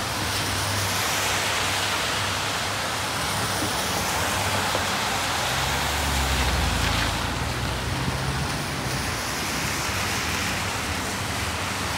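Steady rain on a city street with traffic; around the middle a vehicle passes with a low engine hum that swells and fades.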